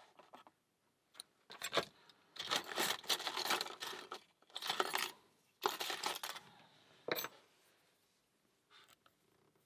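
Small metal lockpicking tools, tension wrenches and bars, clinking and rattling together as they are handled, in several bursts of clatter with short pauses between them and a single sharp click near the end.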